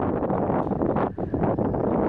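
Wind buffeting the camera microphone: a steady low rumble of noise that briefly drops away just after a second in.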